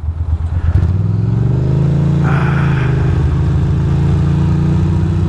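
Ducati Monster 620's air-cooled V-twin engine running under way, its note rising a little about a second in and then holding steady. A short hiss comes about halfway through.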